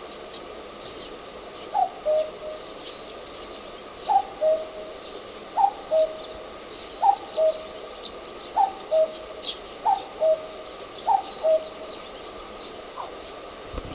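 Common cuckoo calling its two-note "cuck-oo", seven times at about one and a half second intervals, the first note higher than the second. Faint high chirps of other small birds behind it.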